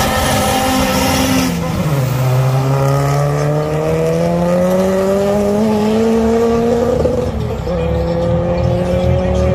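Two drag cars launching off the line. The engine is held at high revs, and about two seconds in the revs fall sharply as the clutch bites and the car launches. The revs then climb steadily as it accelerates away, with a gear change about three-quarters of the way through, after which they rise again.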